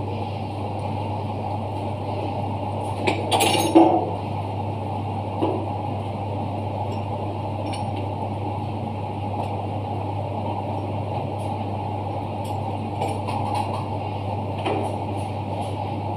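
Metal clinks and knocks as tools and hands work on a dry-cleaning machine's pipework and fittings. The loudest cluster comes about three to four seconds in, with a few lighter taps later. Under it runs a steady low hum.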